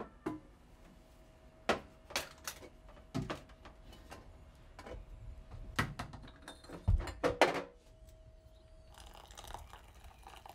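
Kitchen clatter: a spoon and glassware clinking and knocking, about a dozen sharp separate clinks over the first eight seconds. Near the end, water poured from a kettle into a plastic bowl, a steady pour.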